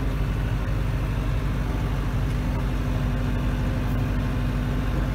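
Branson 5025C compact tractor's diesel engine running steadily at about 1,500 rpm while pulling an arena drag, heard from inside the cab as an even low drone with a constant hum.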